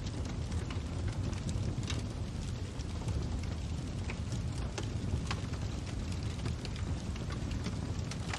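Fire crackling: a steady low rumble of burning with scattered, irregular sharp pops and snaps.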